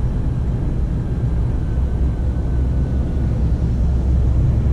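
Scania P280 truck's five-cylinder diesel engine running and tyre noise, heard from inside the cab while driving: a steady low rumble.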